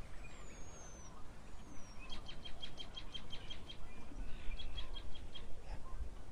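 Small birds calling: two high, falling whistles, then two runs of quick, evenly repeated chirps at about six a second, over a low background rumble.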